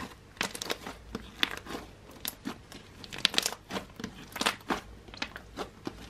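Orange slime, a mix of fluffy and glossy textures, being squeezed and kneaded between the fingers, giving irregular crackling clicks, about three a second.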